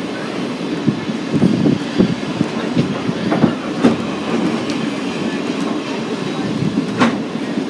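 Steady rumble of a passenger train car rolling along the track, with the wheels clacking sharply over rail joints a few times.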